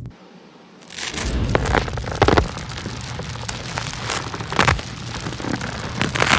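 Dense crackling, rustling noise with irregular sharp clicks and knocks, starting about a second in after a brief lull.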